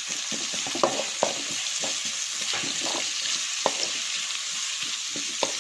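Onions frying in hot coconut oil in a kadai with a steady sizzle, stirred with a spatula that scrapes and taps against the pan many times at uneven intervals.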